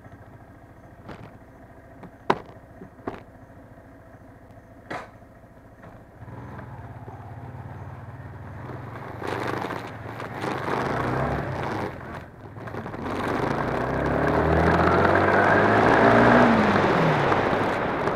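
Yamaha R15 motorcycle's single-cylinder engine idling, with a few sharp clicks, then pulling away and running harder under way. The sound builds to its loudest near the end, where the engine note rises and then falls.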